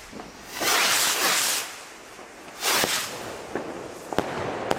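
Magnum Apollo ball-head firework rockets whooshing up on launch, twice, then a few sharp cracks from a crackling burst in the sky near the end.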